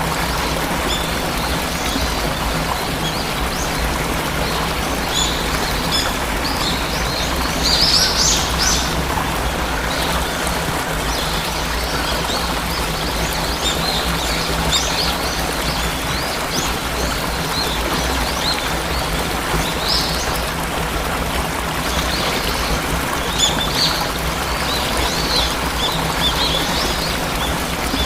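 Steady rushing of falling water, with small birds chirping and twittering over it in scattered short bursts, busiest about a third of the way in and again near the end.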